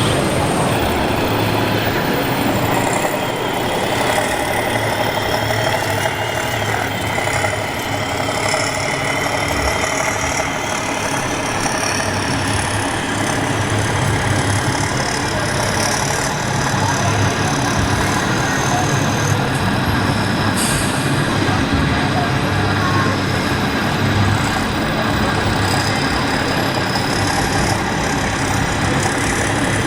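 Large-scale radio-controlled construction models (trucks, excavator, wheel loaders) working, with a steady mix of motor whine and engine-like running noise.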